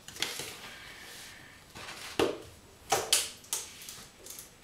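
A large plastic water bottle being picked up and handled over a plastic tub: a few sharp knocks and crackles of the plastic, the loudest about two and three seconds in.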